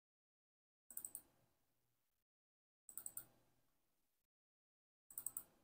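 Faint computer mouse clicks: three quick clusters of several sharp clicks, about two seconds apart, each with a short fading tail, as folders are double-clicked open.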